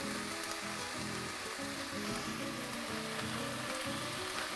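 Background music of held notes, with chopped onions sizzling in olive oil in a pot underneath.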